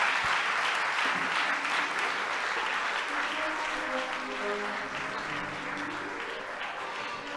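Audience applauding, the clapping slowly dying down, while instrumental music with held notes comes in from about three seconds in.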